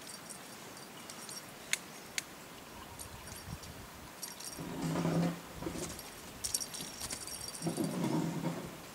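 Light jingling and clicking from a feather-wand cat toy being played with. Two short, louder low sounds come about five and eight seconds in.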